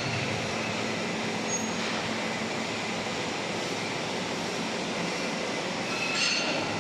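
Steady din of a machining workshop with machine tools running, and a brief high metallic squeal about six seconds in.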